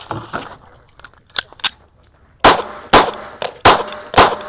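Kahr CW9 9mm pistol firing four shots as two quick pairs, each pair about half a second apart, beginning about halfway through; two faint clicks come shortly before the first shot.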